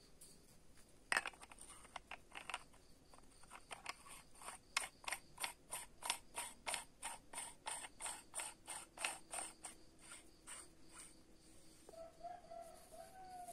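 A single sharp click, then an even run of mechanical clicks at about three a second, like a ratchet or detent being turned by hand on a homemade PCP air rifle's red sleeve.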